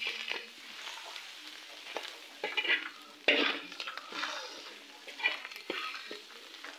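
Metal spoon stirring chopped tripe and onions frying in a pan: a sizzle that swells with each irregular stroke, with sharp clinks of the spoon against the pan.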